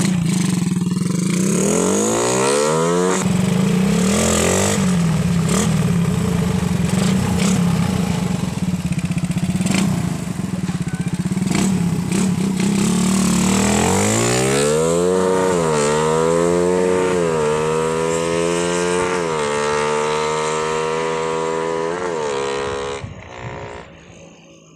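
Suzuki Raider 150 four-stroke single-cylinder engine, freshly fitted with new valves, revving up as the motorcycle pulls away. Later it runs steadier, then climbs through the gears, the pitch rising and dropping back at each of three shifts, before dying away near the end.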